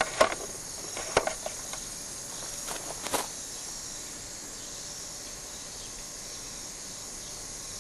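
A few sharp clicks and knocks as the HHO generator cell is handled during the tear-down, over a steady high-pitched chirring of insects in the background. The clicks stop about three seconds in, leaving only the chirring.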